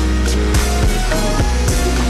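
Slowed-down song: a deep, sustained bass under held synth notes, with a few drum hits.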